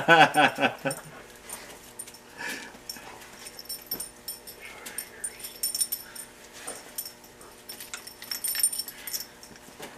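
A dog whining in a wavering pitch for about the first second, then quieter scuffling with light high jingling and clicks as it moves about while being petted.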